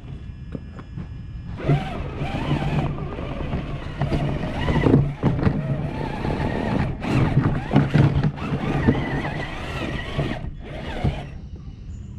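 A radio-controlled car's motor running, its pitch wavering up and down with the throttle. It starts about a second and a half in, dips briefly near the end and stops shortly before the end.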